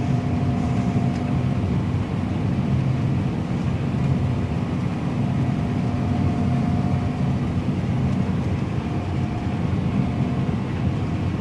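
Combine harvester running while cutting wheat, heard from inside the cab: a steady low drone of engine and threshing machinery, with a fainter higher whine that comes and goes a few times.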